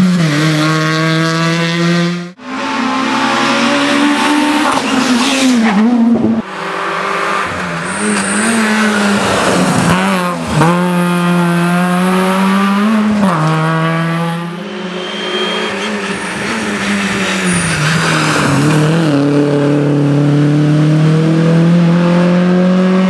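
Peugeot 106 rally car engines at high revs through a tight bend. The pitch drops sharply several times as the driver lifts or changes gear, then climbs again under acceleration. Passes of more than one car are spliced together, with abrupt breaks at about two and six seconds in.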